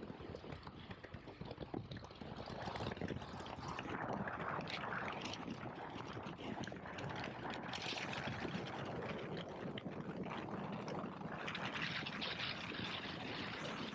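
Motorcycle riding at speed, heard as a steady rush of wind and road noise over the microphone with the KTM 1290 Super Adventure S's V-twin engine running underneath. The rush swells about two to three seconds in and then holds.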